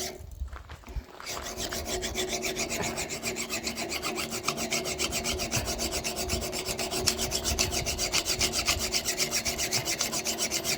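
Hand sharpening of a splitting axe's steel edge: a file or stone is rubbed rapidly back and forth in even strokes, several a second, starting about a second in. This is a final clean-up to take off burrs left by the angle grinder.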